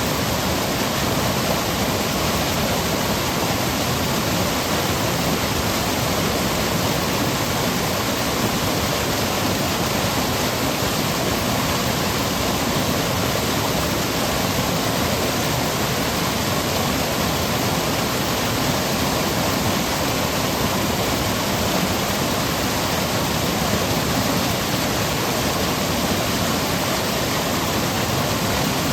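Seasonal monsoon stream running over rocks and pebbles: a steady, loud rush of water.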